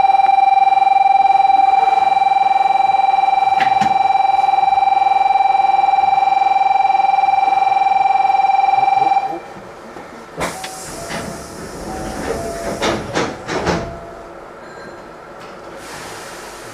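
Railway station departure bell ringing steadily for about nine seconds, then cutting off. Then the train's doors close with an air hiss and several knocks, and a short hiss follows near the end.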